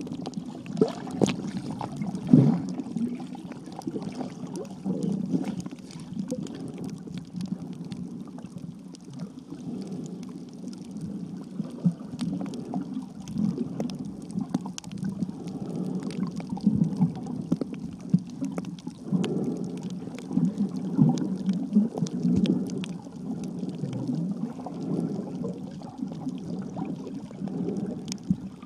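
Muffled underwater sound picked up by an iPhone sealed in a waterproof case: water moving and gurgling around the case, with many scattered sharp clicks.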